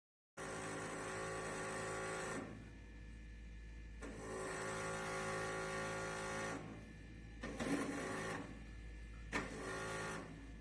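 Water cooler running with a steady mechanical hum of several tones, starting abruptly, that drops and comes back a few times, with a couple of brief knocks.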